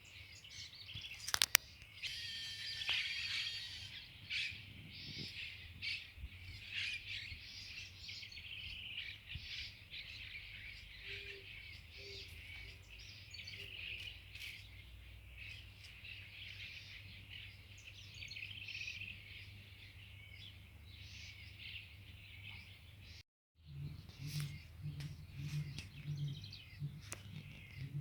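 Many small birds chirping and twittering at once, a dense, unbroken chorus of short high calls. A single sharp click sounds about a second and a half in, and the sound drops out for a moment near the end.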